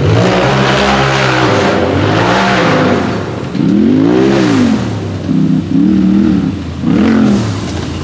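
Race UTV engine revving hard as it climbs a rough dirt hill, its pitch swinging up and down several times as the throttle is opened and backed off, most often in the second half.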